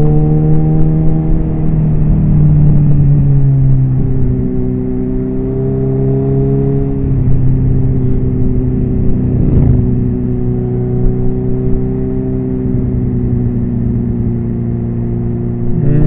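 Suzuki B-King motorcycle's inline-four engine running at steady part throttle, its note rising and falling slightly with small throttle changes, over low wind rumble.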